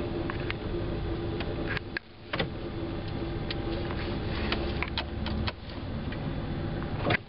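Cabin noise inside a Chevrolet G20 conversion van with its 350 V8 running: a steady hum and rumble, with scattered small clicks and rattles. The sound drops out briefly about two seconds in and again at the end.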